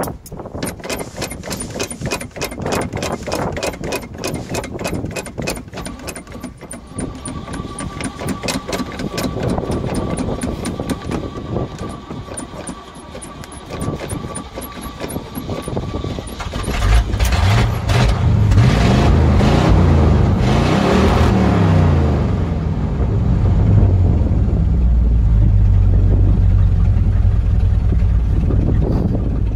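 Square-body Chevrolet pickup's engine turning over on the starter in an even rhythm for about sixteen seconds before it catches. It is then revved up and down a few times and settles into steady running.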